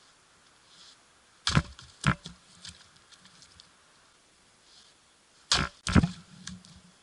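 Two pairs of sharp knocks, the first about a second and a half in and the second near the end, each followed by a few lighter clicks and rattles.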